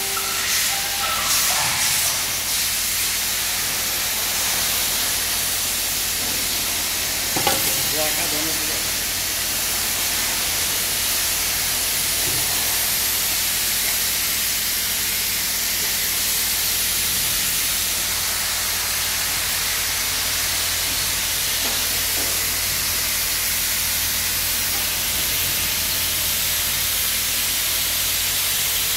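Steady hiss over a low hum from running workshop machinery, with a single short knock about seven and a half seconds in.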